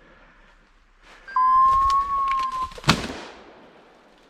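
A single shotgun shot at a woodcock about three seconds in, sharp and loud, with an echo trailing off after it. Just before it comes one long steady beep lasting over a second.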